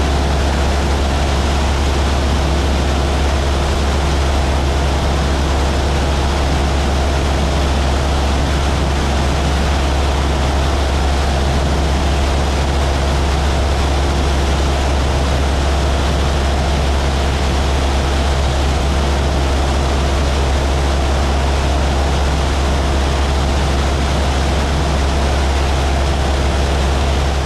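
Steady drone of a small propeller airplane's engine in level flight, with a strong, constant low hum under an even rushing noise.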